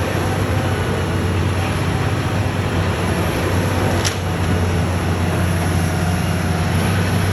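Heavy diesel demolition machinery running steadily, a constant low engine hum under a broad rumble, with one short sharp tick about four seconds in.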